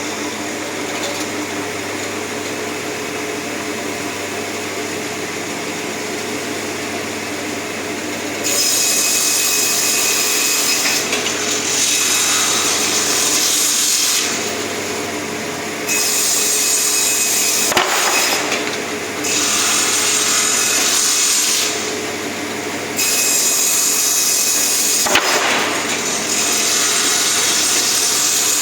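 Double-head wood-cutting saw running with a steady motor hum. About eight seconds in it starts cutting wood, with several loud cuts of a few seconds each.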